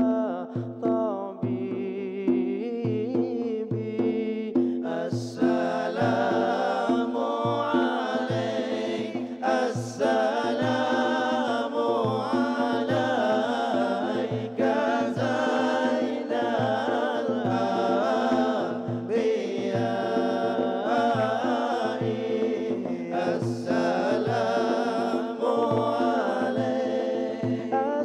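A man singing a salawat, a devotional chant in praise of the Prophet, into a microphone in a melismatic, chant-like style. Under the voice run a steady low drone and a regular low drum beat.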